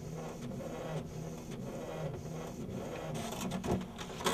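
Inkjet printer printing a sheet: its motor whirs in short, repeated runs about twice a second as the print head makes its passes and the paper feeds out, with a sharp click near the end.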